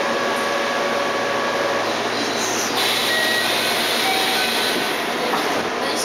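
Door chime of a Keihan 13000-series car (13006), the same type as on JR West's 225 series, sounding a few short tones as the doors close. It plays over the steady hum and hiss inside the stopped train, and the doors knock shut near the end.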